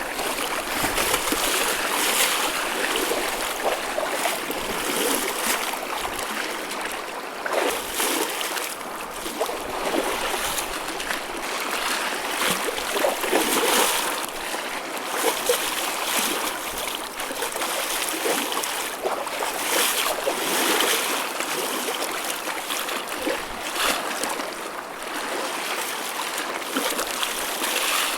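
Choppy ocean waves sloshing and splashing, a continuous rush of water with frequent small splashes and no single large breaker.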